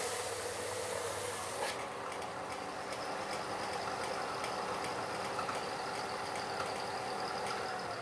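Bench belt sander grinding the steel blade of a homemade parting tool flush with its wooden handle. The grinding hiss stops a little under two seconds in. The sander then runs on with a steady motor hum that starts to wind down near the end.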